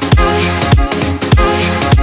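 Electronic dance music in a drum-and-bass or dubstep style, with a heavy bass drum hitting about every half second under sustained synth chords.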